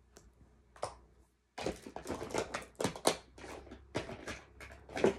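Makeup packaging being rummaged through and handled: a rapid, irregular run of clicks and clatter that starts abruptly about a second and a half in.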